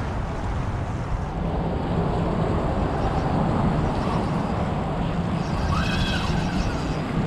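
Spinning reel's drag buzzing steadily as a hooked fish pulls line off against the bent rod, with wind on the microphone.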